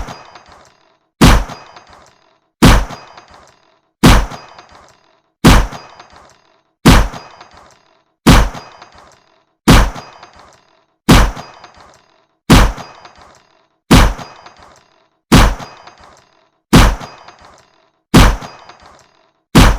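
Fairground shooting-gallery gun firing, one sharp shot about every 1.4 seconds, each ringing briefly before it fades.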